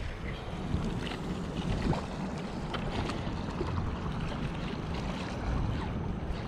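Wind buffeting the microphone in a steady low rumble, over small waves lapping at a shoreline, with a few faint scattered ticks.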